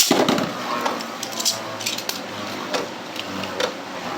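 Beyblade Burst tops launched into a stadium, spinning and clashing: a sharp hit at the start, then irregular clicks and clacks as the tops collide and strike the stadium walls.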